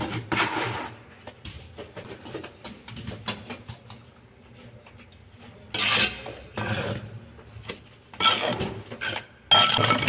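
Bricklayers' steel trowels scraping and tapping on mortar and hollow clay bricks: a run of small clinks and scrapes, with louder scrapes about six seconds in and again near the end.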